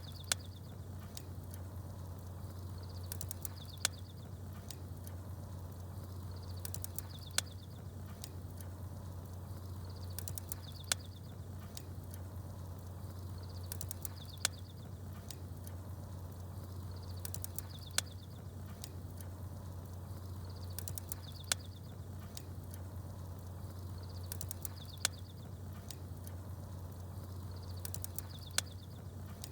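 Campfire crackling with a sharp pop about every three and a half seconds, and small birds chirping briefly just before each pop, over a steady low hum. The pattern repeats identically throughout, like a short looped recording.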